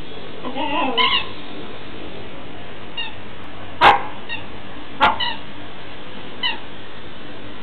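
Squeaky fish dog toy squeaking as a Siberian husky mouths it. A longer wavering squeak comes about a second in, then a few short, high squeaks a second or so apart.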